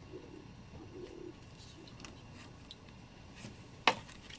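Hard plastic parts of a figure's display stand being handled and fitted together, with faint small clicks and one sharp click near the end as a piece is pressed into place. A faint low murmur is heard in the first second or so.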